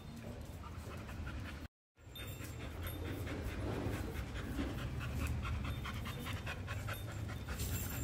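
Heavily pregnant yellow Labrador retriever panting with her mouth open, in quick, even breaths. The audio drops out briefly about two seconds in.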